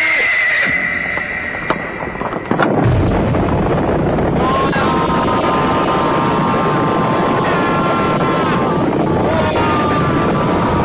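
Cartoon sound effect of a horse whinnying as it rears. About three seconds in, a loud, dense rumble of a cavalry charge sets in, with long steady held tones over it.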